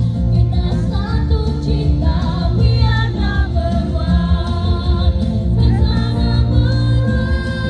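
Children's choir singing together over musical accompaniment.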